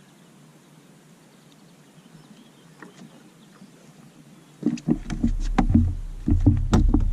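Knocks and thumps in a small fishing boat: a quick run of loud ones starting about four and a half seconds in, after faint quiet.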